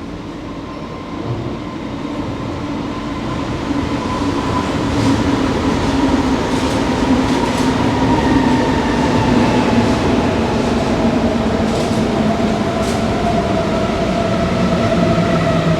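S-Bahn train running into an underground station, its running noise growing louder over the first few seconds while a low and a higher whine glide slowly down as it slows, with a few faint short squeaks.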